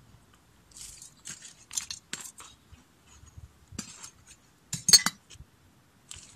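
Metal hand trowel scooping and scraping stony garden soil into a plastic plant pot: a series of short gritty scrapes, crunches and clinks, the loudest a sharp clink about five seconds in.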